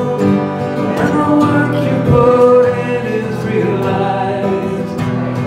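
A woman singing a country ballad live, with held notes, accompanied by a man playing acoustic guitar.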